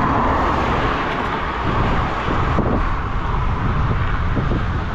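Wind buffeting the microphone while riding an e-bike: a steady rushing noise with a low, uneven rumble underneath.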